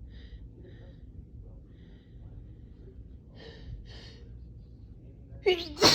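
A person with allergies breathing and sniffling, with two short sniffs a little past the middle. Near the end comes a loud gasping intake of breath, the build-up to a sneeze.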